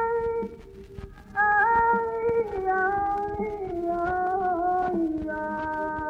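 Flamenco singing from an old recording cleaned of noise. A held high note breaks off about half a second in. After a short gap a high voice comes in with a long, winding, ornamented melodic line.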